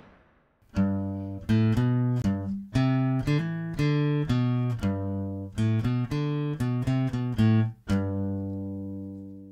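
Short outro jingle on plucked guitar: a quick run of notes beginning about a second in, ending on a long last note that rings and fades away.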